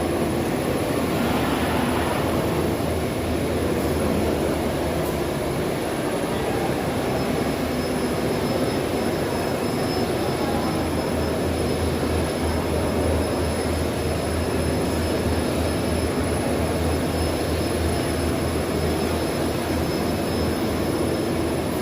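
Steady mechanical hum and rumble of woodworking machinery running, with a thin high whine held throughout.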